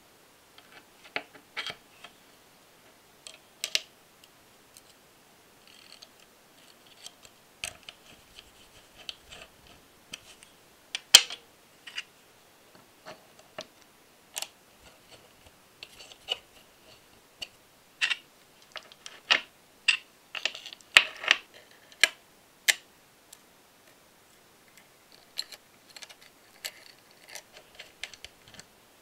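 Small metal parts of a four-cylinder engine model kit clicking and tapping as they are handled and fitted onto the crankshaft: irregular light clicks, with a few sharper knocks standing out.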